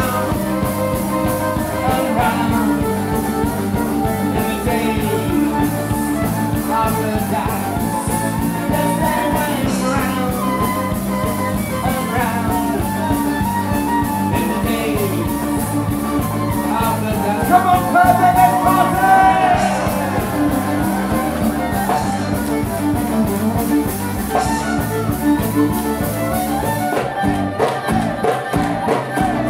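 Live folk-rock band playing an up-tempo tune: fiddle carrying the melody over strummed acoustic guitar and a drum kit keeping a steady beat.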